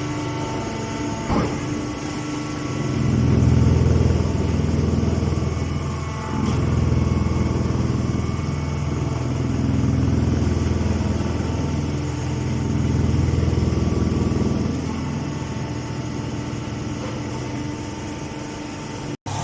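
Chopped hay baler machine running: a steady mechanical hum whose low drone swells louder and eases off four times. There is one short knock about a second in.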